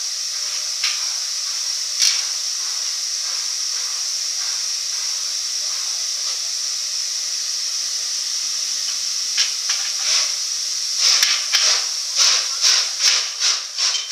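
Steam locomotive 60163 Tornado, a three-cylinder Peppercorn A1 Pacific, approaching with a steady loud hiss of escaping steam, and two sharp clicks about one and two seconds in. About eleven seconds in, its exhaust beats start up, regular at two to three a second, with steam blowing from the front end.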